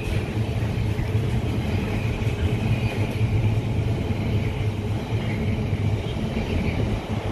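Container freight train's wagons, loaded with shipping containers, rolling past: a steady rumble of wheels on the rails.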